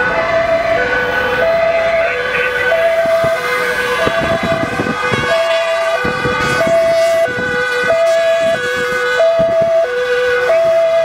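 Two-tone emergency-vehicle siren sounding continuously, alternating a higher and a lower tone, each held a little over half a second, over the noise of passing traffic.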